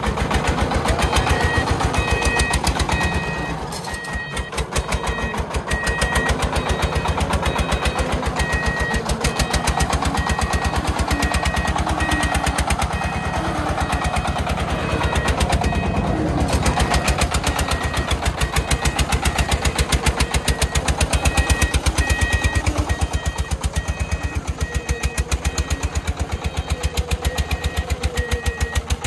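Công nông three-wheeled farm truck's single-cylinder diesel engine running with a rapid, even train of firing knocks, easing briefly about four seconds in. A high-pitched beep repeats steadily over it.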